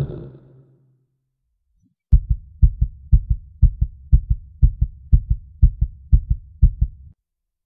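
Heartbeat sound effect: a fast, steady lub-dub of low thumps, about two beats a second, starting about two seconds in and cutting off abruptly about seven seconds in. The tail of a low rumbling effect fades out at the very start.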